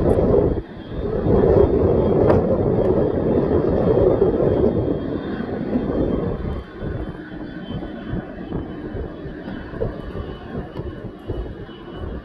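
Aircraft engine noise from a passing plane: a loud rushing sound for the first several seconds, then dying away.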